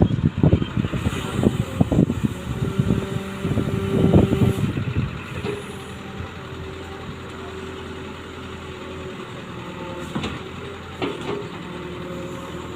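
Excavator's diesel engine running, with heavy clattering knocks for the first four or five seconds, then a steadier hum with a faint held whine and a couple more knocks near the end.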